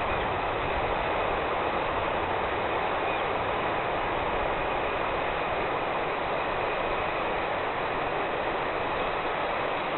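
Steady, even rush of a swollen river in flood, floodwater running fast.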